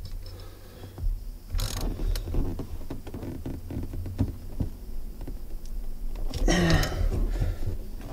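A metal hand tool clicking and scraping in irregular small knocks against the steering-wheel hub bolts, as a stripped bolt that is stuck fast is worked at, over a low rumble.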